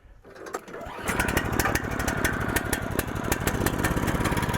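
Small gasoline engine of a manual bandsaw mill running steadily, coming in about a second in.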